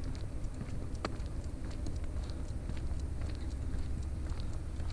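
Walking on a paved street: irregular light taps and clicks of steps, over a steady low rumble.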